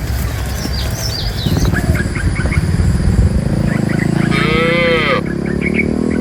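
Cattle mooing: a long low moo, then a higher, arching moo rising and falling about four seconds in.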